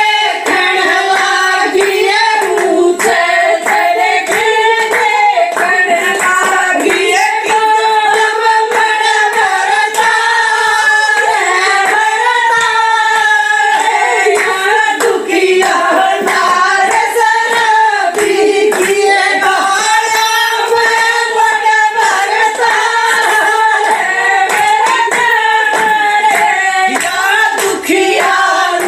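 Female voices singing a Haryanvi folk song (geet), with steady rhythmic clapping.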